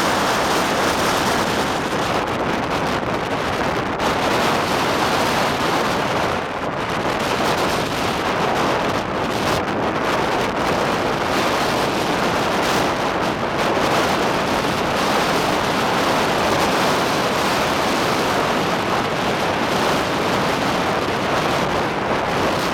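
Strong wind blasting steadily across the microphone, over rough lake waves breaking in a windstorm.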